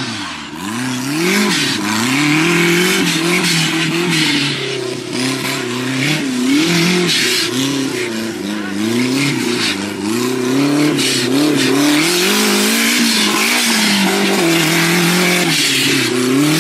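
Off-road racing buggy's engine revving hard, its pitch rising and falling again and again as the throttle is worked over the rough dirt course, with a rushing hiss above it.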